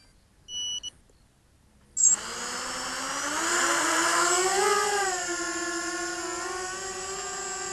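Two short electronic beeps, then about two seconds in the Eachine EB185 racing quadcopter's brushless motors spin up with a sudden burst. Their whine rises in pitch as the throttle comes up, then holds steady with a slight wavering.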